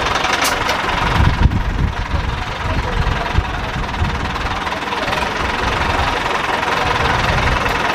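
Diesel engine idling steadily, briefly louder about a second and a half in.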